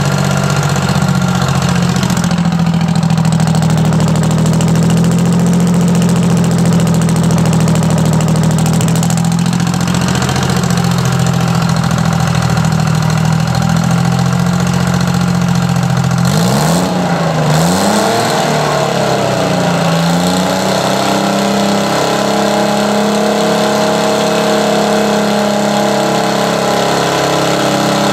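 Detroit Diesel 3-53, a two-stroke three-cylinder diesel, running steadily. About two-thirds of the way in, its speed swings down and up for a few seconds, then settles back into an even run.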